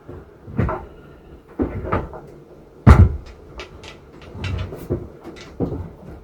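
Knocks and clunks of a shower unit being handled and set into place, the loudest thump about three seconds in, followed by a string of small sharp clicks.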